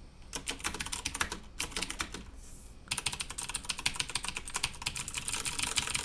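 Typing on a mechanical keyboard with Cherry MX Blue switches: fast, clicky keystrokes in two runs with a brief pause about two seconds in.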